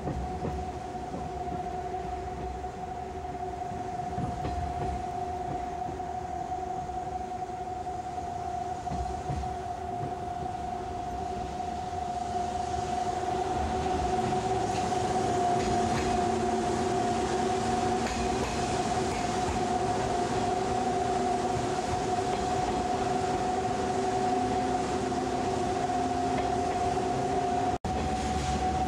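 A 185 series electric train running downhill on the Usui Pass line, heard from inside the carriage: wheels on the rails with a steady humming tone over the running noise. It grows louder about halfway through as the train runs between close concrete walls towards a tunnel.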